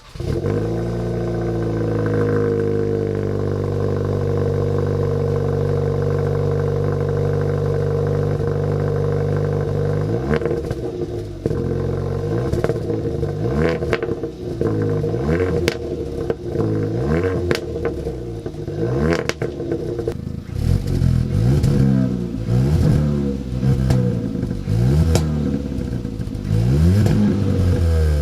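Kia Forte GT's 1.6-litre turbocharged four-cylinder running through an XForce catback exhaust with a Varex valved muffler: it fires up, its revs flare and settle into a steady idle, then from about ten seconds in it is blipped again and again in short revs.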